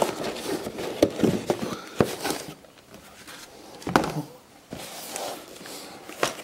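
Handling of an opened cardboard model-kit box and the plastic-bagged parts inside it: several sharp knocks with light rustling and crinkling between them.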